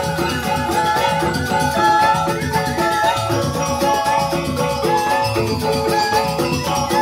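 Balinese joged bumbung gamelan playing a lively dance piece: bamboo xylophones in quick, busy note patterns over a kendang drum, with a rattling shimmer on top.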